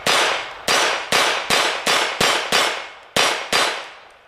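A .22 LR semi-automatic pistol fired rapidly with standard ammunition, nine shots at an uneven pace of roughly two a second. Each crack is followed by a ringing clang from the steel target it hits.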